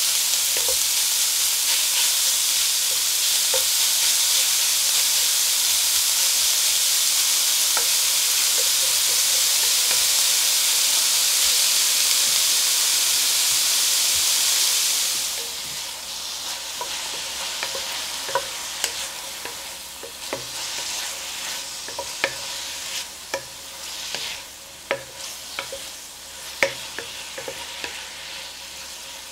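Shredded pork and onion sizzling in hot oil in a pan, loud and steady for about the first half. Then the sizzle drops quieter, and a wooden spatula stirs the meat, scraping and tapping against the pan.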